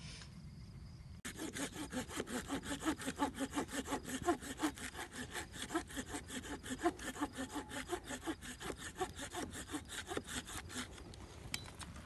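Hand saw cutting wood for the campfire in fast, even strokes, about five a second, each with a short squeal. It starts about a second in and stops shortly before the end.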